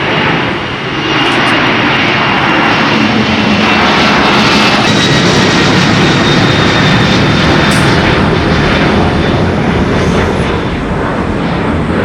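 Jet airliner engines running loud, with a high steady whine over the noise; the sound grows over the first two seconds and then holds.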